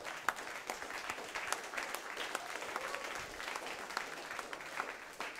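Scattered applause from an audience: many separate hand claps over a low murmur.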